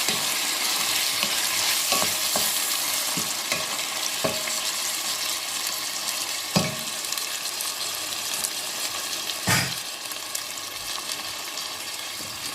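Food sizzling in hot fat in a cooking pot, a steady frying hiss, with a spoon stirring and knocking against the pot a few times; the loudest knocks come about six and a half and nine and a half seconds in.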